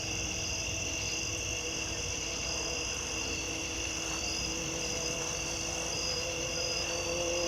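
Insects droning in the woods: steady high-pitched buzzing with a pulsing trill that comes and goes, over a faint low steady hum.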